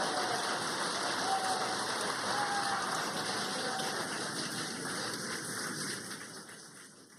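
Crowd applauding and cheering, with a few faint whoops, dying away near the end.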